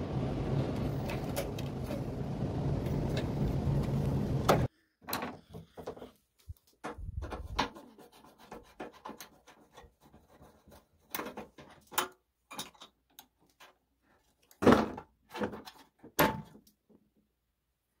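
A steady low rumble with a hum that cuts off abruptly after about four and a half seconds. Then scattered small clicks, taps and rustles of a screwdriver and wire terminals, as the high-voltage diode is unscrewed from the microwave's chassis and handled. Two sharper clicks near the end are the loudest.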